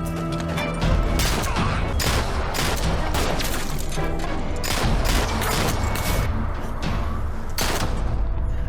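A firefight: many irregular gunshots, at times several a second, with a low rumble beneath, over dramatic background music.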